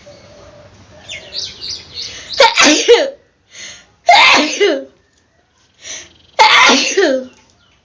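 A woman sneezing three times, about every two seconds: loud voiced sneezes, each with a short sharp intake of breath before it, after a few quick catching breaths. The sneezes are set off by tickling the inside of her nose with a blade of grass.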